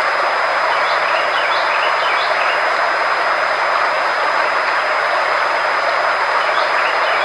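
Frequency-therapy sound track: a loud, unchanging rushing noise with a constant high-pitched tone and a faint low hum under it, and a few faint short chirps.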